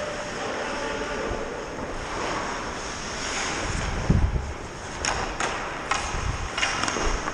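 Wind rushing over a helmet-mounted camera microphone as the wearer skates on an ice rink, mixed with the scrape of skate blades on the ice. Several sharp knocks come in the last few seconds.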